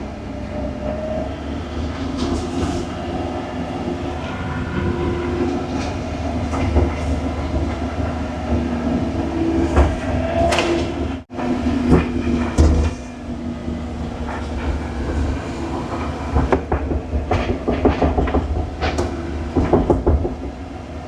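Excavator's diesel engine running under hydraulic load, with pitch changing as the hydraulics work. Scattered clanks and knocks from the tracks and machine sound throughout, with a cluster of them in the last few seconds.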